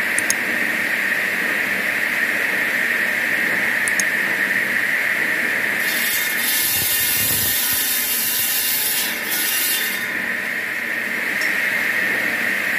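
Large water-cooled circular-saw stone-cutting machine cutting a block of volcanic stone, with a steady high-pitched grinding whine from the blade. A louder hiss comes in for a few seconds in the middle.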